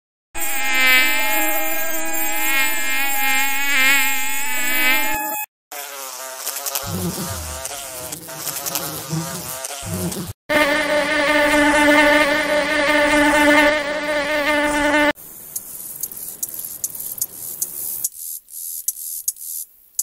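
A string of insect sound-effect clips: winged insects such as house flies buzzing in flight, a steady drone with a slightly wavering pitch, in several separate takes. Near the end come rapid dry clicks, like grasshopper stridulation.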